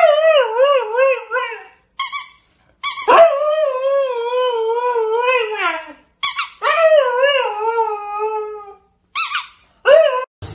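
Siberian husky howling and 'talking': long drawn-out calls whose pitch wobbles up and down, three long ones in a row, then two short yelps near the end.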